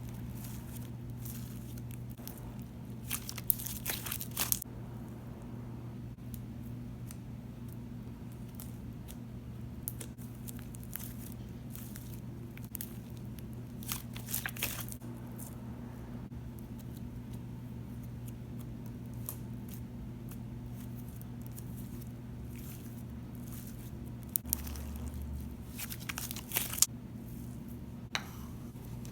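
Coloured slime being handled and pulled apart, giving short sticky tearing and squishing sounds a few scattered times, over a steady low electrical hum.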